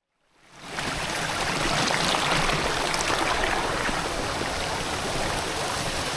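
Rushing water of a mountain stream, a steady even rush that fades in within the first second and cuts off at the end.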